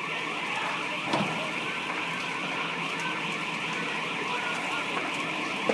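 Large building fire burning, with scattered crackles and pops over a steady high hiss, and one sharp crack about a second in.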